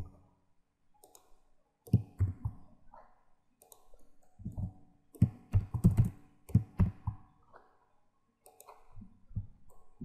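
Computer keyboard being typed on, several short bursts of keystrokes separated by brief pauses.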